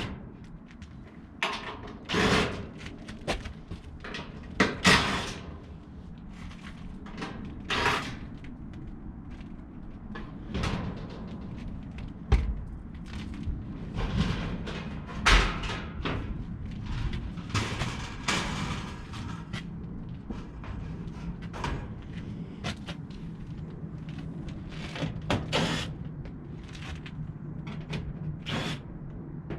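Sheet-metal access panels of a rooftop gas package HVAC unit being handled and opened: irregular knocks, clanks and clatters, some sharp and loud.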